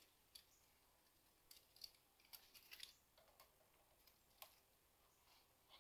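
Near silence with a dozen faint, brief clicks and taps scattered through it: small handling noises of parts being worked.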